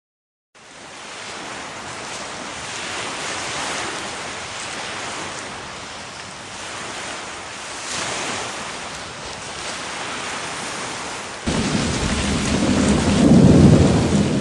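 Steady rain falling, with a loud low rumble of thunder breaking in about eleven seconds in, swelling and then fading.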